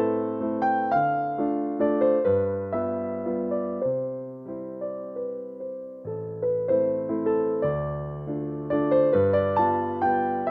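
Background music: a slow, gentle piano melody with chords, each note struck and fading away.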